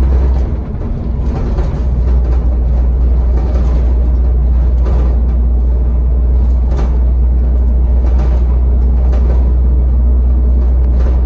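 Denning Phoenix low-floor bus with a Caterpillar diesel engine, under way and heard from inside the passenger cabin: a steady deep drone with road noise and a few faint knocks. The sound dips briefly just under a second in.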